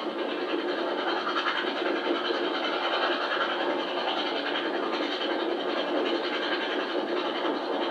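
Steady running noise of a steam-hauled passenger train at speed, heard from an open carriage window, with no clear exhaust beat or single knocks. The sound is thin and band-limited: an old video tape's soundtrack re-recorded from playback.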